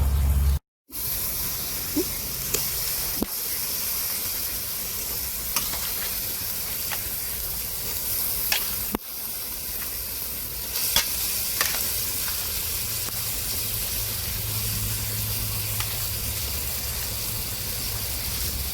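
Onion and tomato masala sizzling steadily in hot oil as it is sautéd and stirred, with a few sharp clicks scattered through it.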